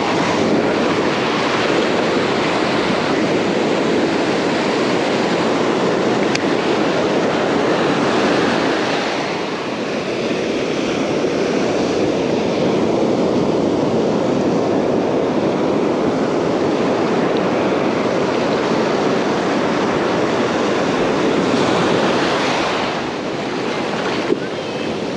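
Ocean surf breaking and washing up the beach in a steady rush of white water, with wind on the microphone.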